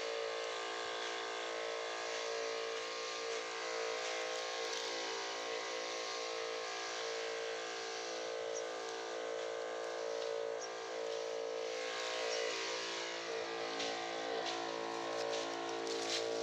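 A small motor humming steadily at one even pitch.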